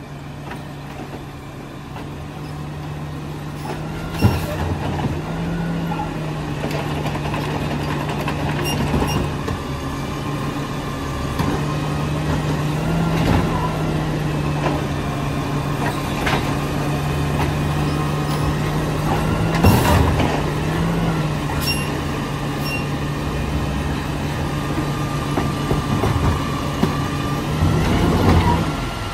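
Garbage truck's diesel engine running steadily and speeding up briefly several times, with repeated sharp clanks and knocks as heavy carts are dumped and packed.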